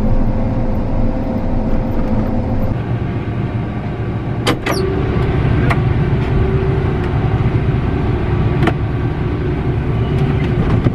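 A vehicle engine running steadily with a low rumble, with a few sharp clicks about four and a half seconds in and again near nine seconds.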